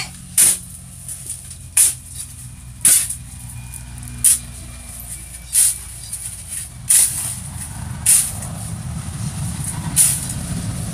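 Metal shovel blade scraping across a concrete floor as it is driven into a heap of loose, dry mix, about eight short sharp scrapes at a steady pace of roughly one a second.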